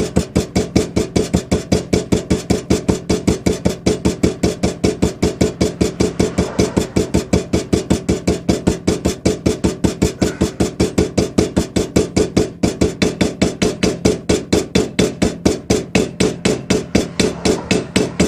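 Rapid, light hammer taps, about five a second, driving a new shaft seal into a power steering pump housing, worked around the seal's rim. The ring of the blows changes once the seal is seated and the taps land on the outer part of the housing, the sign that the seal is seated well.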